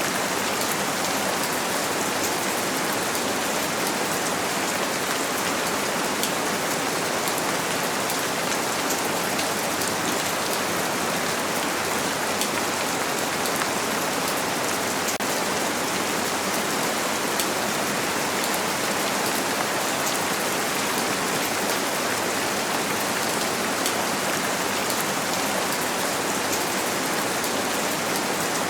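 Steady rain on a window pane, an even unbroken hiss with faint scattered drop ticks.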